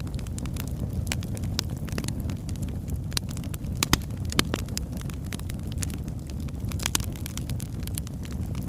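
Birch wood fire crackling: irregular sharp pops and snaps over a steady low rumble, with the loudest pops a little under four seconds in and again about half a second later.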